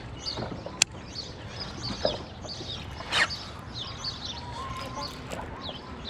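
Birds chirping and chattering in the background, many short falling chirps, with one sharp click about a second in and a louder single call about three seconds in.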